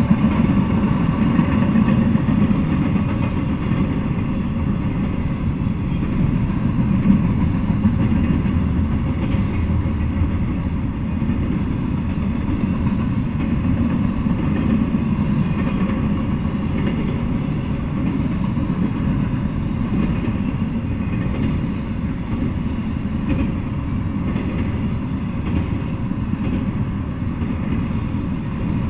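Double-stack intermodal freight train of container-laden well cars rolling past: a steady low rumble of steel wheels on rail.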